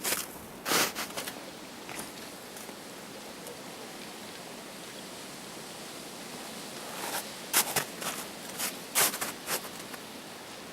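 Steady rushing of a waterfall, with bursts of close rustling near the start and again a few seconds before the end.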